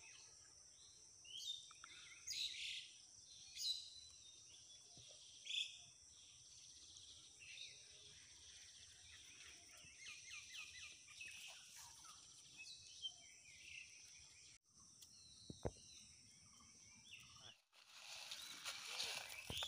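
Steady high-pitched insect drone with birds chirping now and then, most often in the first six seconds. A louder rustling noise starts near the end.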